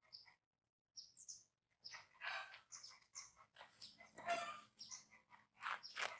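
Faint, scattered short bird chirps, some rising in pitch, with a few brief distant animal calls.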